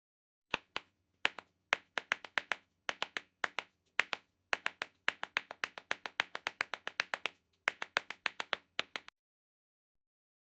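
Tap dancing: metal-tipped tap shoes striking a hard floor in quick rhythmic runs of sharp clicks, broken by short pauses between phrases. The tapping stops about nine seconds in.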